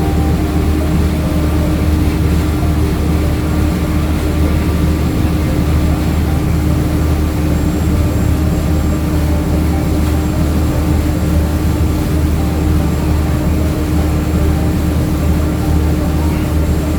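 Passenger boat's engine running steadily: a constant low drone with a steady humming tone above it, unchanging throughout.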